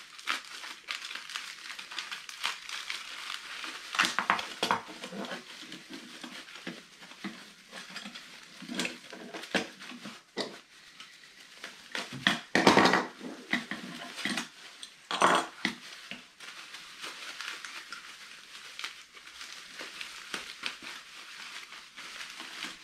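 Plastic bubble-wrap packaging crinkling and rustling as it is unwrapped by hand from a router's metal fence, with louder crackles about 4, 9, 12 and 15 seconds in and now and then a light clink of metal parts.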